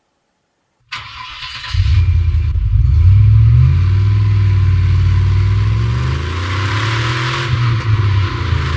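Car engine running with a slowly changing pitch, loud and sustained. It cuts in abruptly about a second in.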